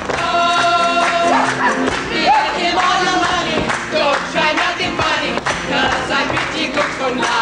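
Live stage music with an ensemble of voices singing over the accompaniment, with a held note near the start.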